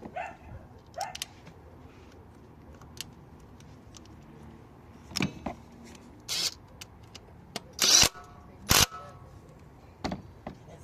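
Scattered sharp clicks and clunks of ignition coils and engine-bay parts being handled and fitted, with a few louder knocks, some briefly ringing, between about six and nine seconds in.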